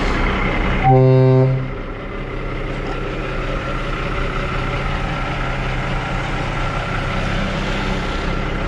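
A 2008 International Eagle tractor-trailer gives one short horn blast about a second in, then its diesel engine runs steadily as the truck pulls away.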